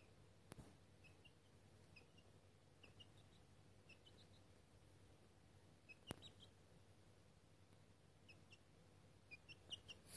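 Young chicks peeping faintly: scattered short, high chirps coming a few at a time in small clusters, with a couple of faint clicks.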